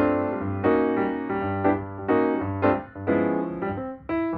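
Background piano music, notes and chords struck about twice a second in a steady rhythm.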